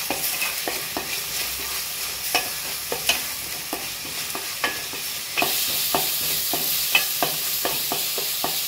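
Ground onion-and-spice masala sizzling in oil in a stainless steel pan as a spatula stirs it, scraping and knocking irregularly against the pan. The sizzle grows louder about five seconds in.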